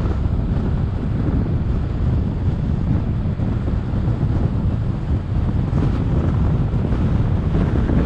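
Wind buffeting the microphone of a camera mounted on a moving car: a steady low rumble that stays even, with road noise beneath it.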